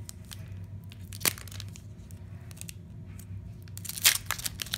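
Foil wrapper of a trading-card pack being crinkled and torn open by hand. Scattered small crackles give way to a sharp crack about a second in, then a dense burst of tearing and crinkling near the end.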